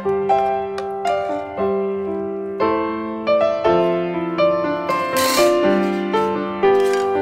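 Background piano music, single notes and chords struck at an unhurried pace and left to fade. A brief hiss about five seconds in.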